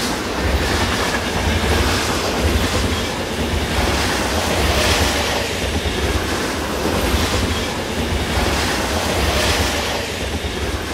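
A train running on rails: a steady heavy rumble with a rattling wheel-and-track hiss that swells about every two seconds.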